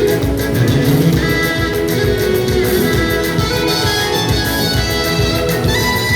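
Instrumental music with guitar and strings over a steady pulsing beat.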